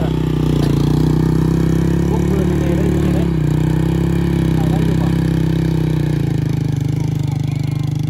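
A small engine running steadily at an even low pitch, its lowest tone thinning out about six seconds in.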